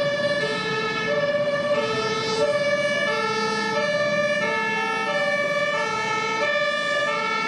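Emergency-vehicle two-tone siren, switching between a high and a low note about every half second, over a steady rushing noise.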